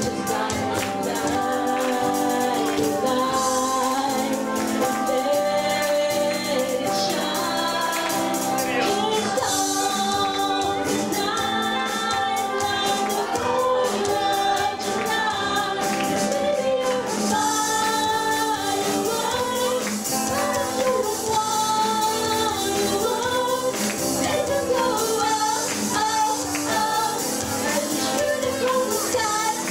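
A small live band playing a song: women singing into microphones over acoustic and electric guitar, with percussion keeping a steady rhythm.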